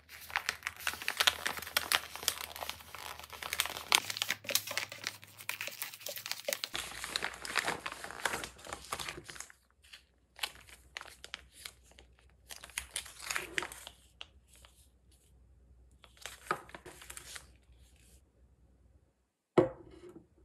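Plastic meal-kit pouch being torn open and crinkled, a dense crackling for the first half, then the sealed plastic inner pouches handled in separate crinkly bursts. A single sharp knock near the end.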